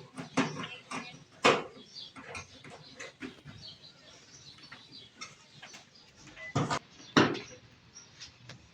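Scattered knocks and clicks of the washing machine's plastic cover and its screws being fitted by hand, with sharper knocks about a second and a half in and twice around seven seconds in.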